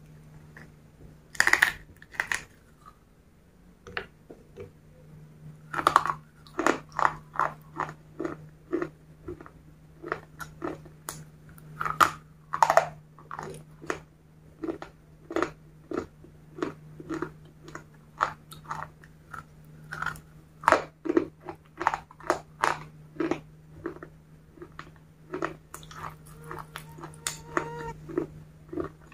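Close-up biting and chewing of crunchy white sticks dipped in chocolate sauce: two sharp bites near the start, a pause, then a long run of crisp crunches as they are chewed. A steady low hum sits underneath.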